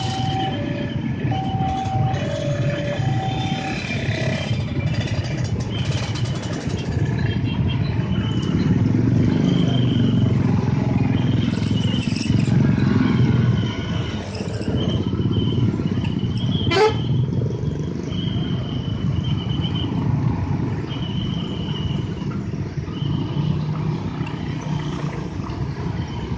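Mixed road traffic, mostly motorcycles with some cars, running and pulling away over a railway level crossing: a steady engine rumble, somewhat louder in the middle, with short high-pitched beeps sounding on and off and a brief rising whistle-like sweep about two thirds of the way through.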